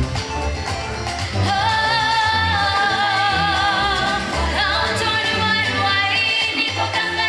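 A song playing: a voice holding long wavering notes over a pulsing bass line, with a new phrase starting about four and a half seconds in.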